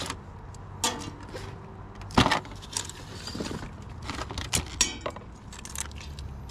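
Irregular metallic clinks and knocks of cooking utensils against a small pan, the sharpest knock about two seconds in and a brief rattle just before five seconds.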